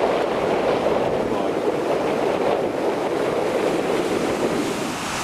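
Ocean surf washing in, mixed with wind on the microphone: a steady rushing noise.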